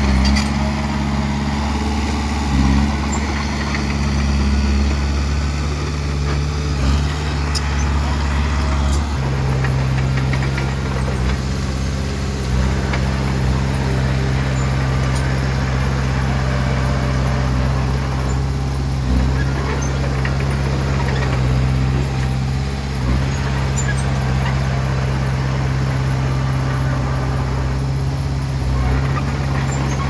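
Komatsu D20P bulldozer's diesel engine running steadily under work, its engine note shifting about nine seconds in, with a few short knocks.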